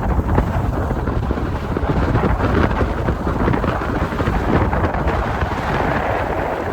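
Wind buffeting the microphone: a loud, steady, fluttering rush that is heaviest in the low end, with no voices.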